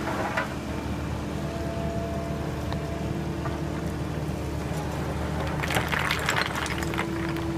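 Excavator's diesel engine idling steadily, with a burst of rustling and clattering about six seconds in.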